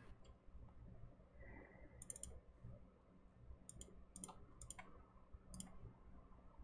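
Near silence broken by about half a dozen faint, irregular computer clicks, starting about two seconds in.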